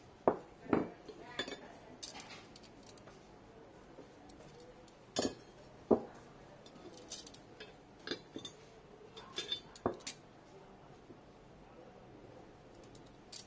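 Cast brass wall hooks clinking and knocking against each other as they are picked up and set down, in scattered sharp clinks with pauses between, the loudest near the start and about six seconds in.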